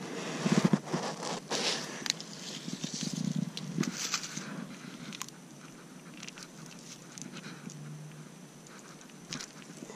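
Dry leaf litter crackling and rustling as it is disturbed, with scattered scrapes and clicks; the loudest cluster comes in the first second and it quietens after about five seconds.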